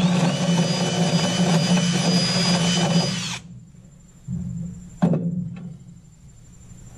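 Kobalt 24-volt cordless drill boring through a wooden truck bed floor, its motor running steadily with a whine, then stopping about three and a half seconds in. A single sharp knock follows about a second and a half later.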